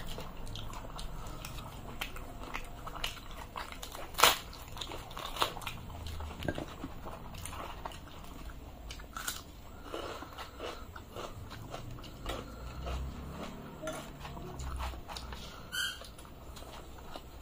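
Close-miked chewing and biting of two people eating by hand, mixed with soft tearing of luchi (puffed fried bread) and scattered sharp clicks. The sharpest click comes about four seconds in.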